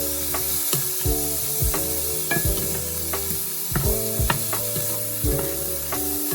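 Food sizzling as it fries in a pan, with background music with a steady beat.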